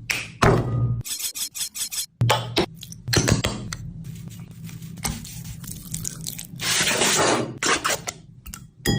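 A quick series of kitchen handling sounds: rubbing and scraping with short clinks of dishes or utensils, starting and stopping abruptly.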